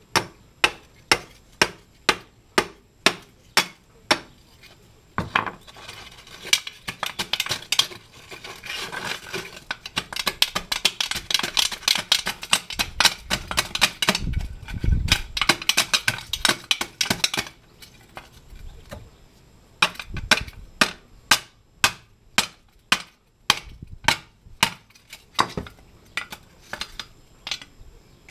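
Long steel bar jabbed again and again down into a catalytic converter shell, gutting it by breaking out the honeycomb core: sharp metallic clanks about twice a second, then a fast run of jabs with crunching and rattling from about five seconds in, then spaced clanks again in the last third.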